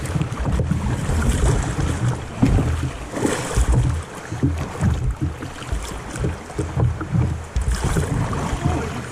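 Kayak running river rapids: rushing, splashing water around the boat, with wind buffeting the microphone.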